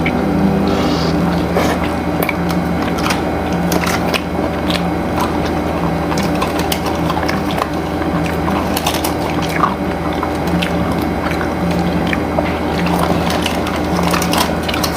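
Crunching and chewing crispy fried chicken: many irregular crackly clicks from the coating being bitten, over a steady background hum.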